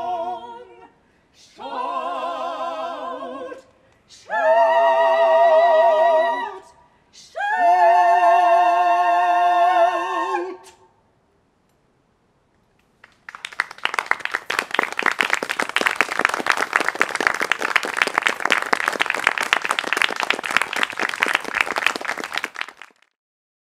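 Mixed a cappella vocal quartet singing the closing chords of a song: four long held chords with vibrato, the last ending about eleven seconds in. After a short pause, an audience applauds for about ten seconds.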